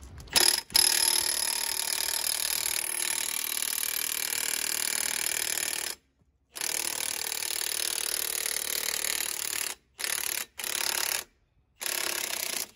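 Milwaukee M18 Fuel 3/4-inch cordless impact wrench hammering to back off the driveshaft yoke nut: one run of about five seconds, a second of about three, then three short bursts near the end, each cut off sharply as the trigger is released.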